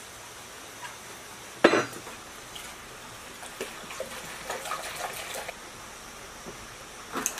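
A sharp knock about two seconds in, then fuel poured from a metal jerry can through a plastic funnel into a small diesel engine's fuel tank, a splashing trickle lasting about two seconds, with a few light clicks near the end.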